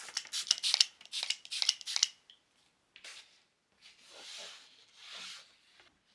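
A spray bottle squirted about ten times in quick succession, then a paper towel wiped along the clear plastic rail of a paper trimmer in two longer strokes, cleaning off dust.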